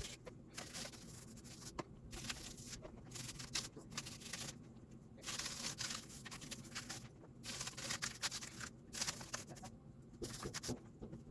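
Toothbrush bristles scrubbing a wet, soapy keyboard, in uneven strokes of scratchy hiss that start and stop every second or so.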